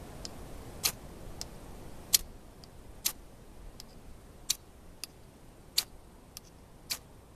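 Knife spine scraped hard down a ferro rod, six quick sharp strikes about one every second, throwing sparks onto tinder to start a fire.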